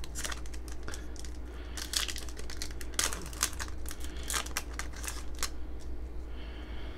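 Foil booster-pack wrapper of a Yu-Gi-Oh Maximum Gold pack crinkling and being torn open by hand, in many short, irregular crackles over a steady low hum.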